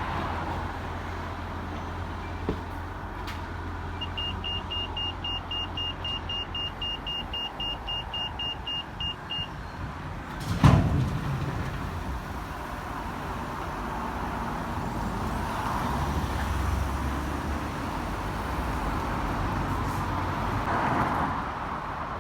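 Pelican crossing's pedestrian signal beeping: a high, steady beep repeated quickly, about three to four times a second, starting about four seconds in and stopping some five seconds later. Steady road traffic runs underneath, and a single loud thump comes about halfway through.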